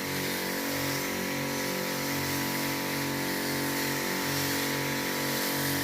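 A small engine running steadily, its low hum pulsing slowly and regularly.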